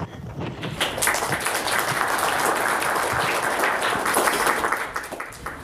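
Audience applauding, building up about a second in and tapering off near the end.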